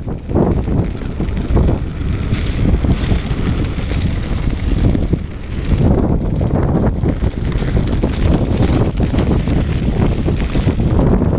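Wind rushing over the camera microphone of a mountain bike descending a dirt trail at speed, a loud low rumble that surges and dips, with the tyres and bike rattling over bumps.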